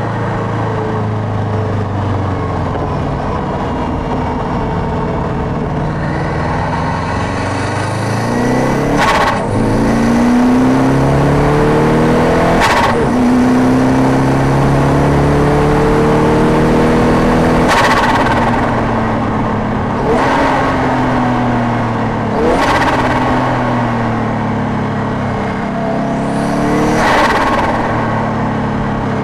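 Subaru Impreza WRX EJ205 turbocharged flat-four heard close to its air intake. The revs climb and drop repeatedly through gear changes. About six short hissing bursts of turbo flutter come at the shifts, and the revs fall away in the later part.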